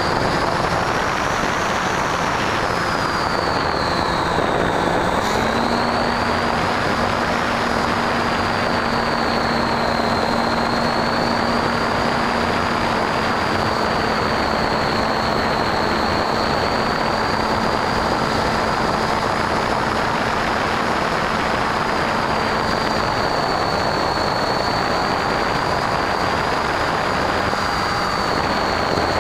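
Electric motor and pusher propeller of a Bixler v1 foam RC plane in flight, heard from its onboard camera over constant wind rush. A high whine drifts gently up and down in pitch with the throttle, and a lower hum steps up about five seconds in.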